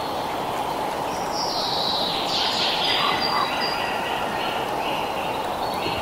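Wind rushing steadily through forest trees, with songbirds singing over it: a burst of song between about one and three and a half seconds in, then a run of short repeated notes.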